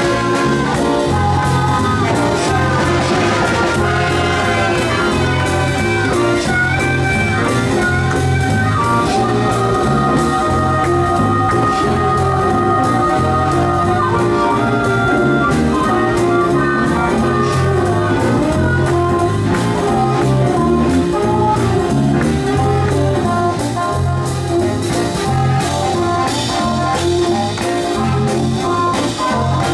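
Live band playing a jazzy number: brass carrying the melody over a moving bass line and a drum kit keeping a steady beat.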